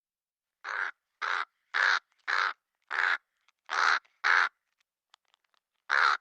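Crow cawing: a run of seven short, rasping caws about half a second apart, then after a pause one more caw near the end.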